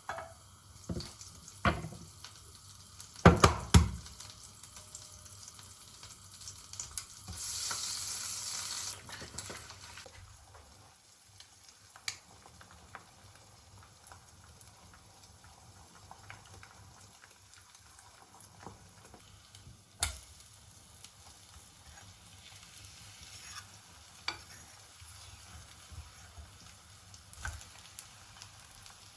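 Kitchen handling sounds: scattered knocks and clinks of utensils against dishes and pans, the loudest a few seconds in, with a short hiss about seven seconds in.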